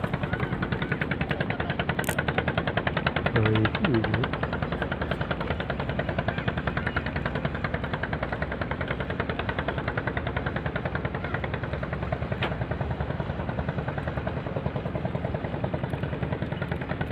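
An engine running steadily with a fast, even chugging.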